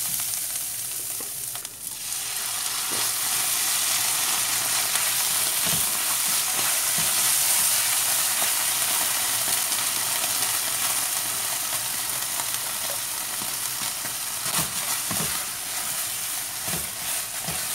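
Chopped calabresa sausage, onion and herbs sizzling steadily in a hot frying pan while a spatula stirs them, with a few light knocks of the spatula against the pan.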